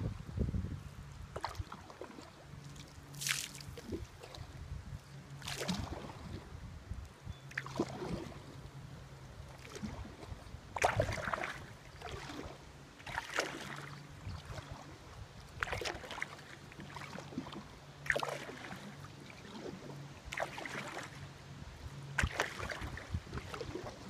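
Kayak paddle strokes: the blades dip and pull through the water with a splash about every two to two and a half seconds, in a steady rhythm.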